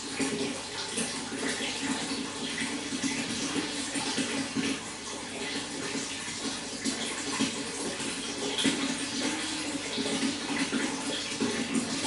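Running water flowing steadily, with many small splashes.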